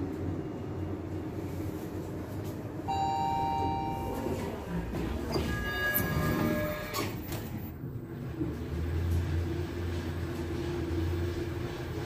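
Schindler elevator arrival chimes: one chime tone held for about a second, then a second, higher-pitched chime about two seconds later. A steady low hum of the lift machinery follows.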